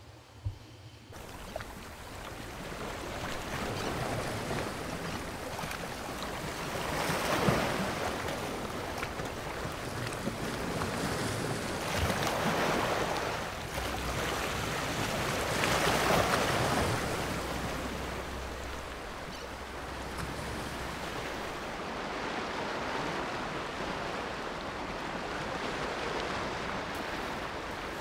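Sea waves washing onto a rocky shore, the surge swelling and easing every few seconds, with wind blowing. A single short knock comes just before the surf starts.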